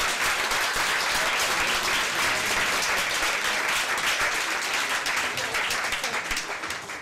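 Audience applauding: many hands clapping together in a steady, sustained round of applause, easing off slightly near the end.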